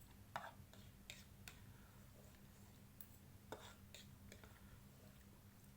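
Near silence with a few faint, scattered clicks and light eating sounds over a low steady hum.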